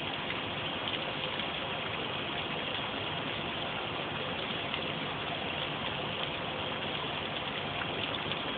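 Steady hiss of heavy rain pouring down.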